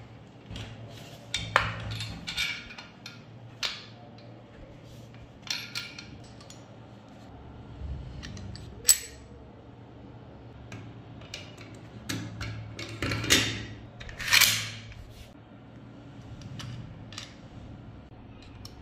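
Steel parts of an AK-47 clicking, clinking and scraping as they are handled and fitted together: irregular light clicks, one sharper click about nine seconds in, and a couple of longer sliding scrapes a little later.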